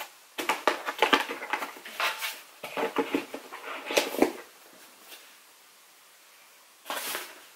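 A gift box and its contents being handled and put away: about four seconds of irregular rustling, clicking and knocking of cardboard and bottles. It then goes quiet, with one short rustle near the end.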